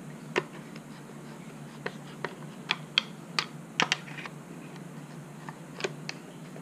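Irregular sharp clicks and taps of a metal screwdriver against small screws and the plastic housing of a motorcycle speedometer as the screws are fitted and driven in, over a faint steady hum.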